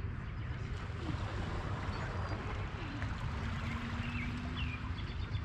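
Steady outdoor rumble and hiss, with a few faint bird chirps near the end.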